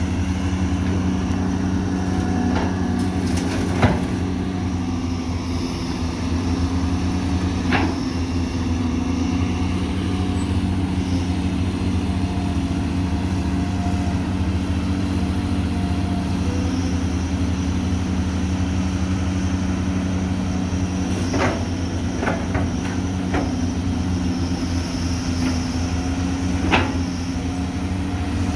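Caterpillar hydraulic excavator's diesel engine running steadily under load while it digs and loads soil into a dump truck. Sharp metal clanks come now and then from the bucket and boom: a loud one about four seconds in, another around eight seconds, a quick run of several later on and one more near the end.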